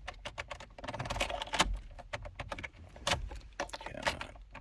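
Car key jangling and clicking as it is worked in the 2007 Honda Civic's ignition cylinder, a run of sharp clicks with a couple of louder knocks. The cylinder is worn and sticking, its wafers starting to lock up.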